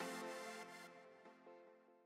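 Background music: a sustained synth-like chord struck at the start that slowly fades, with softer notes following as it dies away.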